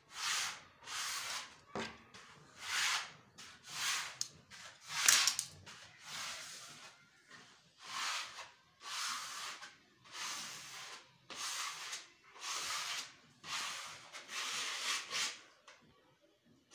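Freshly pasted wallpaper being smoothed onto a wall: a series of about a dozen brushing swishes, roughly one a second, that stop shortly before the end.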